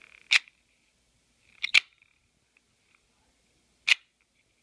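AKC 777 Black Finger out-the-front automatic knife firing and retracting its blade with sharp mechanical snaps: one about a third of a second in, a quick double about a second later, and a last one near the end. It fires nice and hard.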